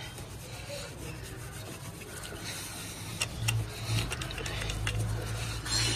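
A cotton cloth rubbed briskly back and forth over a Royal Enfield Continental GT 650's chrome exhaust pipe, buffing off dried nickel-powder polish: repeated scratchy scrubbing strokes. A few sharp clicks come in the second half.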